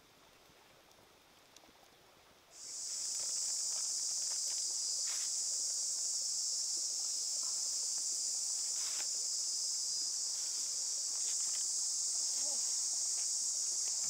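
Steady high-pitched insect drone that cuts in suddenly about two and a half seconds in, with faint scattered clicks beneath it.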